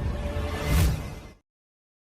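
Tail of intro music and sound effects fading, with a brief louder swell just under a second in, then cutting off suddenly to dead silence.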